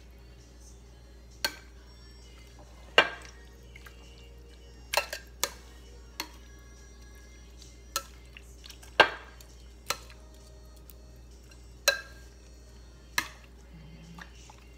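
Kitchen tongs clacking against a glass mixing bowl while turning chicken pieces in marinade: about ten sharp knocks at irregular spacing, one every second or so.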